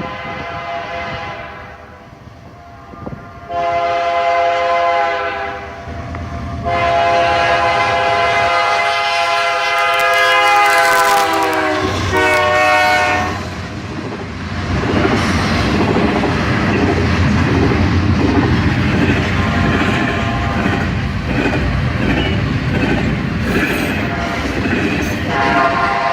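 Diesel locomotive air horn blowing two long blasts and a shorter one as a freight or passenger train approaches, the chord dropping in pitch as the locomotive passes. Then the steady rumble and wheel clatter of the train rolling by, with the horn sounding briefly again near the end.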